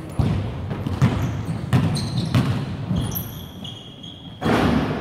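A basketball being dribbled on a wooden sports-hall floor, bouncing every half second to a second, with sneakers squeaking briefly around the third second. A loud rush of noise comes near the end. The sound carries the echo of a large hall.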